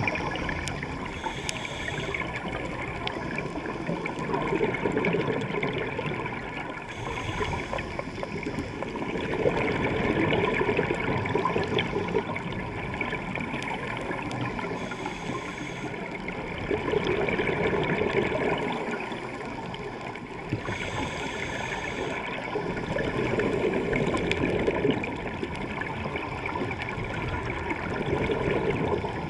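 Scuba diver breathing through a regulator, heard underwater: a short hiss on each inhalation followed by a longer rush of bubbling exhaled air, repeating about every six to seven seconds.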